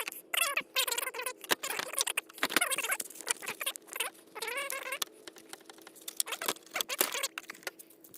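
Plastic squeaking and clicking as a car headlight assembly is worked free by hand and its electrical connector unplugged: repeated short wavering squeaks among many sharp clicks.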